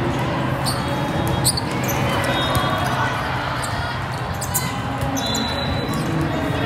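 Volleyball rally: the ball being struck several times and shoes squeaking on the sport court, over the steady murmur of a large, echoing hall full of people.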